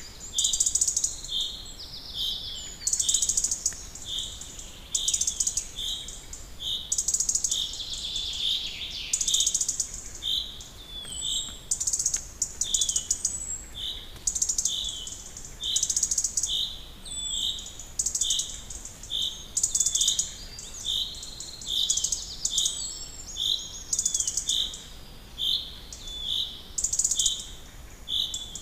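A bird calling over and over in a steady rhythm: short high notes about twice a second, with harsher hissing calls about once a second between them.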